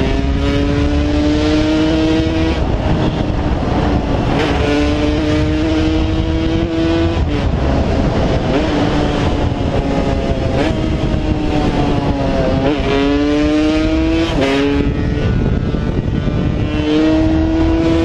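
Yamaha DT 200's 195 cc two-stroke single-cylinder engine pulling hard through the gears. Its pitch climbs repeatedly and drops at each upshift, with a steadier stretch of cruising in the middle. Wind rumbles on the microphone underneath.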